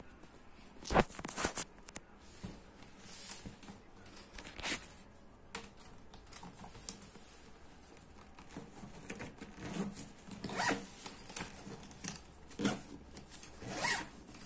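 A nylon square delivery backpack being handled: short scratchy rasps and rustles as its straps are pulled through their buckles, in irregular bursts.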